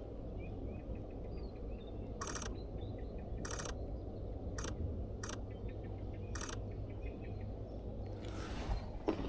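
Sony A1 camera shutter firing in five short, rapid bursts of continuous shooting, starting about two seconds in and about a second apart.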